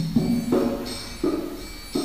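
Music: a rhythmic piece of short, pitched, struck notes repeating about three times a second, with a bright, high layer sounding on some of the beats.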